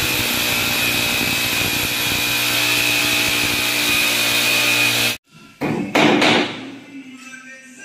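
Forte electric hammer drill boring a hole into a wall, running steadily with a high whine for about five seconds and then cutting off suddenly. About a second later a hammer knocks a few times, driving a wooden plug into the drilled hole.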